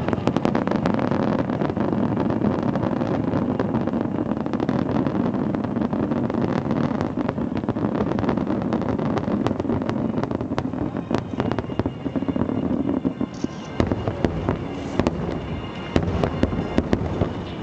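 Large fireworks display: a dense barrage of shells bursting and crackling in rapid succession, with heavier low booms from about three-quarters of the way through.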